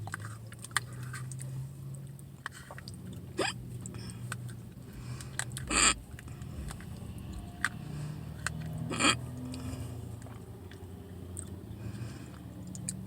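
Two loud, abrupt hiccups about three seconds apart, from a persistent bout of hiccups, with quiet chewing and small clicks between them over a steady low hum inside a car.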